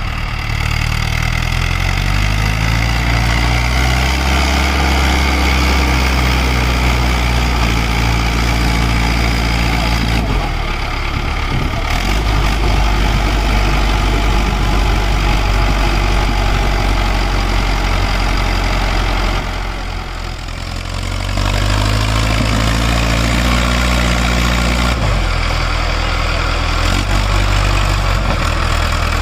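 Mahindra Arjun 555 DI tractor's diesel engine revving hard under load while its rear tyres dig in soft sand to haul a loaded trailer out. The revs climb in the first few seconds, ease off briefly about ten seconds in and again about twenty seconds in, then climb back up.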